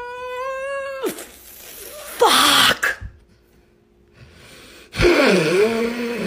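A woman's voice wailing and crying. A long held wailing note ends about a second in. A harsh gasping cry follows, then a short pause, and a strained wavering sob near the end.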